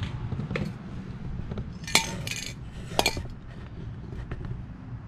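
Metal aerosol spray paint can clinking as it is handled on concrete: a sharp ringing clink about two seconds in, a short rattle, then another clink about a second later.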